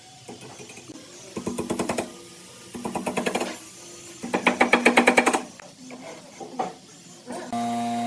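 A woodworking power tool running in three short bursts of about a second each, with a fast, even rattle. Music starts near the end.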